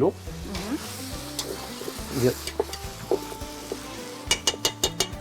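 Chicken pieces sizzling as they fry in oil in a cooking pot, with a quick run of metal clinks from a utensil against the pot about four seconds in.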